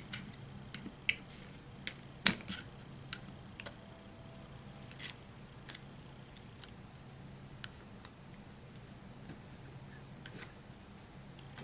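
Small sharp clicks and taps of metal tools and parts being handled while the motor is worked off a Tri-ang model locomotive chassis, with a faint steady hum underneath.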